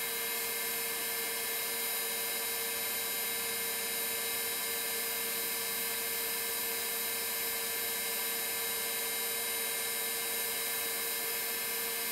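Boeing 737 vertical gyroscope (model 314) with its rotor spinning at full, stabilised speed: a steady whine made of several fixed tones, unchanging throughout.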